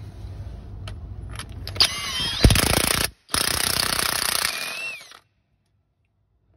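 Impact gun hammering the new crankshaft pulley bolt of a Ford 2.0 TDCi diesel tight, in two bursts of about a second and a half each, with a wavering motor whine over the rattle of the hammering.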